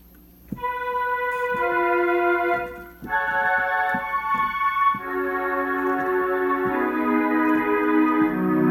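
A Yamaha S-08 digital stage keyboard playing a slow run of four held chords. The first starts about half a second in, and the chord changes roughly every two seconds.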